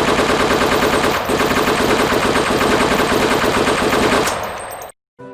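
Rapid automatic gunfire, a long unbroken stream of shots that fades away about four seconds in and stops.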